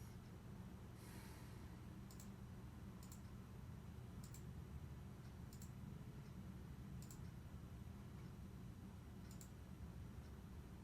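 Near silence: a steady low hum with about five faint, sharp ticks at irregular intervals and a brief soft rustle about a second in.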